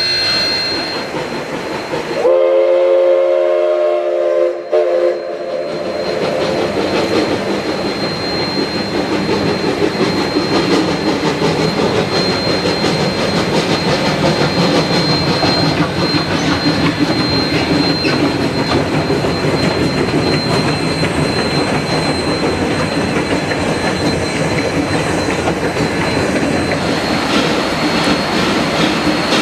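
A train sounds its whistle once for about three seconds, a chord of steady tones. Then the train runs on with a continuous rumble and wheel clatter, and a thin steady high tone on top.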